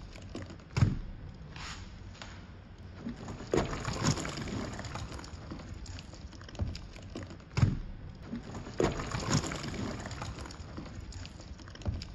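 Irregular knocks and clacks, a few of them loud, with brief rustling handling noises over a steady hiss, from bleach bottles, buckets and a sponge being handled.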